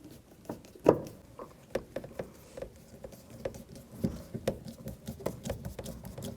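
A run of short, sharp, irregular clicks, roughly two or three a second, the loudest about a second in: a hand tool working the mounting bolts of a car's door handle.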